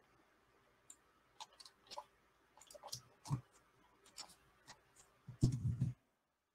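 Faint, irregular clicks of a computer keyboard and mouse in use, a dozen or so separate taps. About five seconds in comes a short, louder muffled low sound, and then the audio drops out completely.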